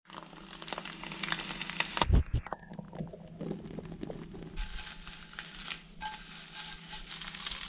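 Rustling and crackling with many small clicks, and two dull thumps about two seconds in.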